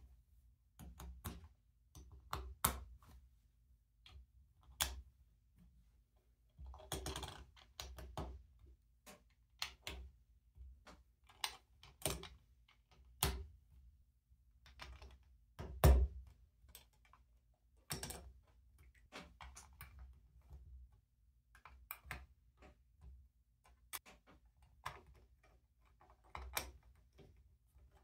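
Plastic LEGO bricks clicking and snapping together under the fingers, with pieces tapped and set down on a tabletop in an irregular run of small clicks. There is a short cluster of rattling clicks about a quarter of the way in, and one louder thump a little past halfway.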